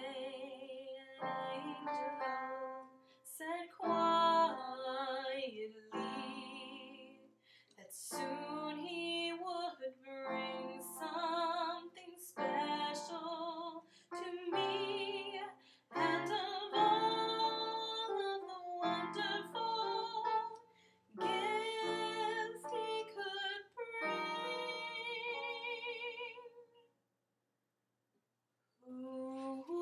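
A woman singing a slow song with vibrato while accompanying herself on piano, in phrases with short breaks between them. Near the end it stops for about two seconds, then starts again.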